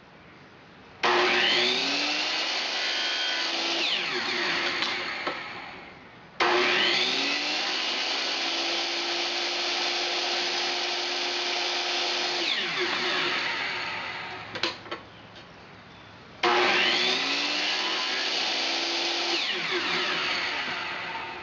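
DeWalt miter saw cutting flattened PVC pipe, started three times: each time the motor whines up to speed, runs steadily through the cut for several seconds, then winds down with a falling whine. A couple of sharp clicks come between the second and third cuts.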